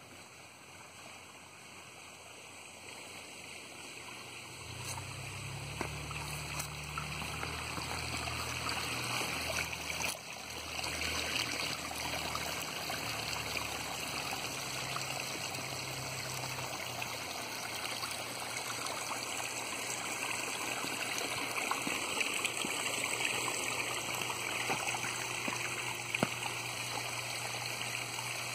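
Small pond waterfall, water splashing and trickling steadily, getting louder over the first several seconds and then holding steady. A low hum runs under it for about a dozen seconds, starting about five seconds in.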